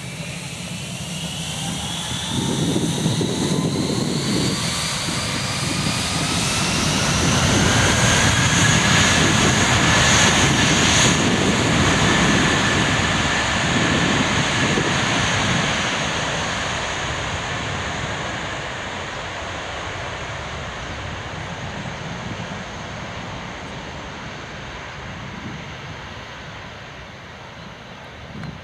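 JetBlue twin-engine jet airliner on its takeoff run. The engines' whine rises in pitch as they spool up to takeoff thrust, and the roar builds to its loudest about eight to twelve seconds in as the plane passes, then fades as it climbs away.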